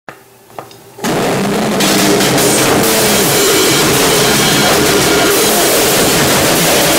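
Harsh noisecore music: after a couple of faint clicks, a loud, dense wall of distorted noise with drums starts about a second in and carries on without let-up.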